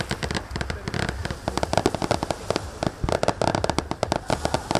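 Fireworks display: aerial shells bursting in a rapid, unbroken string of bangs and crackling pops, thickest about one and a half seconds in and again over the last two seconds.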